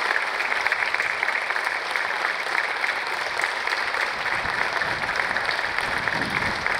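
Crowd of players and spectators applauding steadily, many hands clapping at once in a continuous patter.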